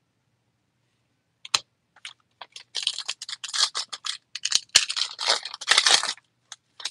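Foil trading-card pack being torn open, its wrapper crinkling and crackling. A sharp snap comes about a second and a half in, and the crinkling runs from about two and a half to six seconds in.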